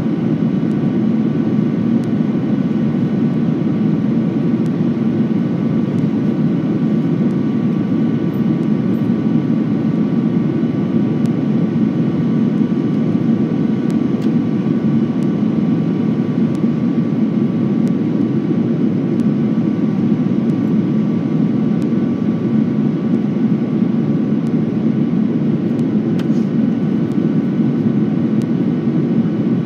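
Steady cabin noise of a jet airliner on its descent: an even, loud rush of air and engine hum, with faint steady whining tones from the engines.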